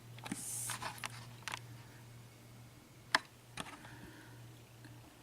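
Faint handling noises on a work surface while the view is moved closer to the lock pins: a soft rustle in the first second, then two light clicks about half a second apart near the middle, over a low steady hum.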